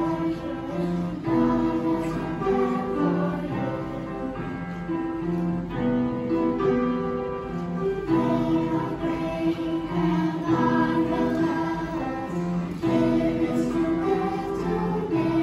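Children's choir singing in long held notes over an instrumental accompaniment.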